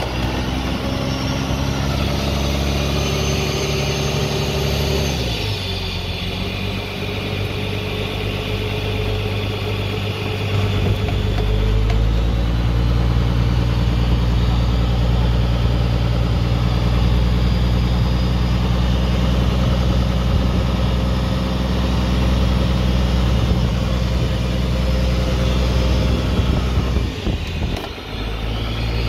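A fishing boat's engine running steadily; its pitch drops about five seconds in, then it settles into a louder, even run from about twelve seconds in, with a brief dip near the end.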